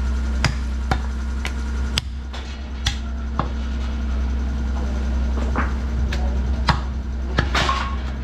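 Butcher's cleaver chopping through a bone-in goat leg on a wooden chopping block: a series of sharp chops at uneven intervals, about a dozen, over a steady low hum.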